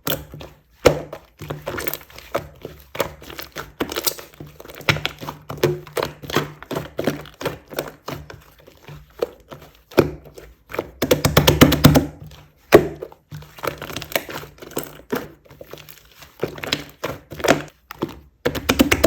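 Slime being pressed, poked and folded by hand, giving irregular sticky clicks and crackles, with a longer run of rapid crackling about eleven seconds in.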